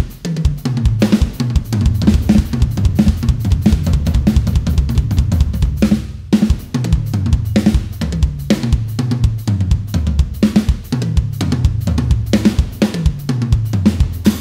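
Electronic drum kit played fast and continuously: runs of hand strokes moving down the toms from high to low pitch, again and again, interleaved with bass drum and hi-hat pedal strokes in a two-hands, two-feet coordination pattern. A brief break comes about six seconds in.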